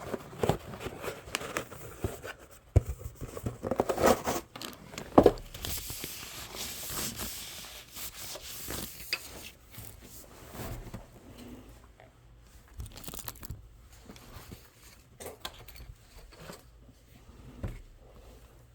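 Crinkling, tearing rustle with scattered small sharp clicks and crunches, busiest in the first five seconds, then a steadier rustle that thins out toward the end.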